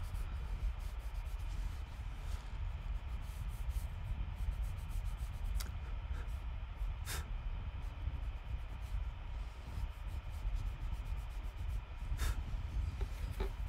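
Tissue paper rubbed back and forth over charcoal on drawing paper, blending the shading: a soft rustling over a steady low rumble, with a few sharp ticks spread through.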